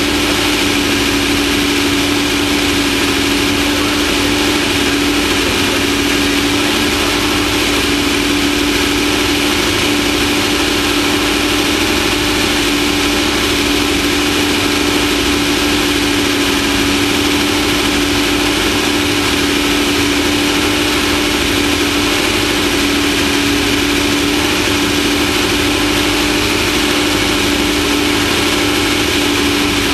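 Off-road race vehicle's engine running at one steady pitch, loud and unbroken, over a constant rushing noise.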